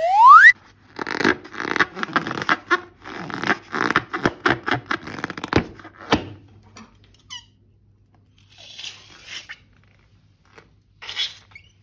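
A rubber balloon gives one loud squeak that rises in pitch. It is followed by several seconds of rapid crackling, squishing handling noises from the balloon and slime, with softer bursts near the end.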